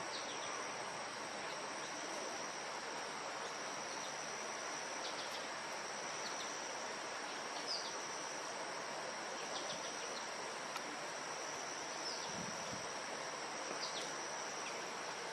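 Crickets trilling together in a steady, high-pitched chorus, with faint short high chirps every few seconds.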